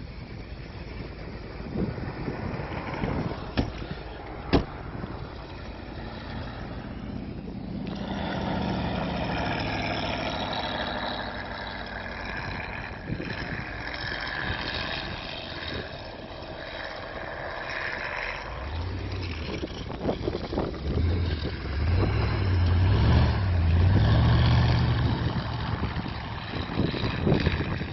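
Engine of a vintage tracked snowcoach running as it ploughs through deep snow, growing louder as it approaches and loudest as it passes close near the end. Two sharp clicks about four seconds in.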